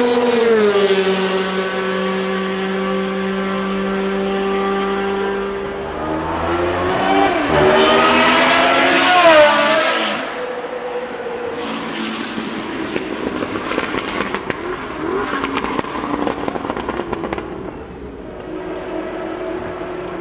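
Ford Cosworth DFV 3.0-litre V8 of a historic Formula One car at racing speed. Its high, steady note drops in pitch about half a second in, holds, then climbs sharply through the revs to its loudest around nine seconds in and cuts off. After that the engine sounds farther off and ragged, with rapid popping and crackling, and near the end it settles into a steadier, distant note.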